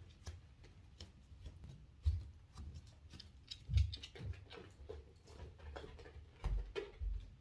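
Dogs' claws clicking and ticking irregularly on a hard floor as they walk, with a few soft low thumps of footsteps about two, four and six and a half seconds in.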